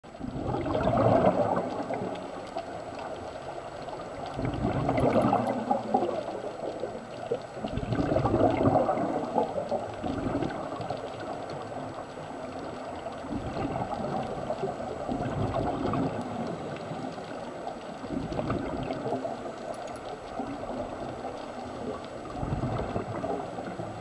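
Scuba regulator breathing heard underwater: bubbling exhaust surges every few seconds as a diver breathes out, over a steady rushing water noise.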